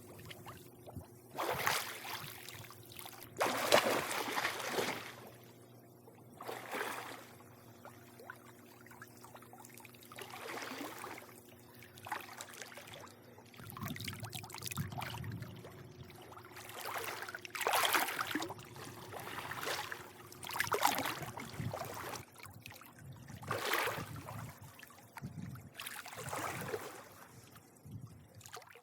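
Swimming pool water lapping and sloshing in irregular surges every second or two, over a faint steady hum.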